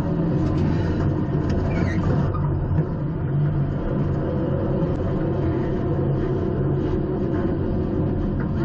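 Engine and road noise heard inside the bare, stripped-out cabin of a race car driving at a steady pace, with no big changes in revs.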